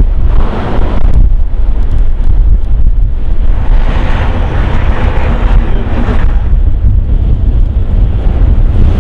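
Strong blizzard wind buffeting the microphone with a heavy, constant low rumble. Hissier gusts swell briefly near the start and again from about four to six seconds in.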